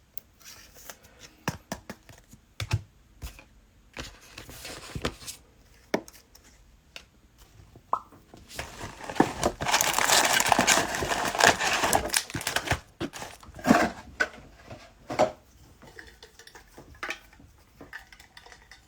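Plastic cellophane trading-card pack wrappers being torn open and crinkled, with scattered small clicks and rustles of handling cards. The longest and loudest stretch of tearing and crinkling comes about nine to twelve seconds in.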